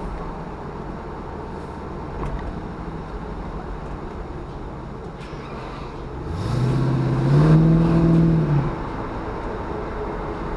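LQ4 V8 in an LS-swapped Chevy Nova heard from inside the cabin while driving: a steady engine and road rumble, then about six seconds in the engine revs up under acceleration, holds for a couple of seconds and eases off.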